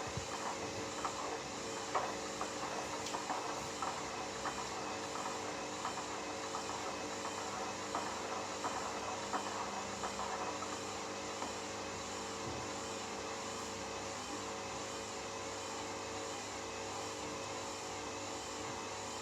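Hoover Dynamic Next 7 kg washing machine running through a quick wash. The drum motor hums steadily, with the uneven splashing of water and laundry in the drum over the first half.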